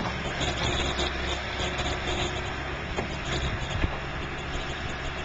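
John Deere backhoe loader's diesel engine running steadily while the machine digs, with one sharp knock a little under four seconds in.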